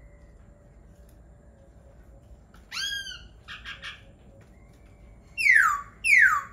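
Laughingthrush calling: a clear rising-and-falling note about three seconds in, two short rough notes, then two loud, steeply falling whistled notes close together near the end, the loudest of the calls.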